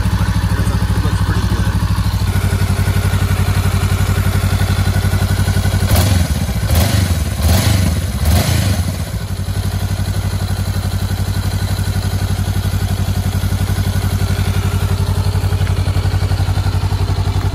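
2019 Honda CB500X's 471 cc parallel-twin engine idling steadily on fresh oil, just after an oil and filter change. A few knocks and thumps come over it about six to nine seconds in.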